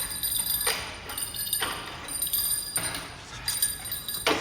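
Metal bells struck one after another with a mallet, about one strike a second, each strike leaving a high ringing tone.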